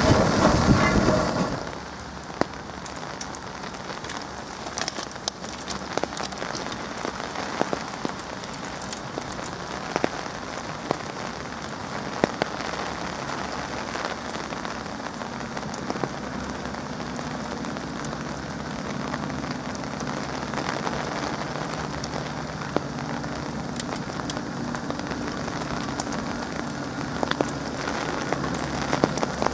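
Rain falling steadily, an even hiss dotted with sharp drop ticks. For the first second and a half a passing train rumbles loudly and then cuts off; from about halfway a small steam locomotive's low running hum rises faintly as it approaches.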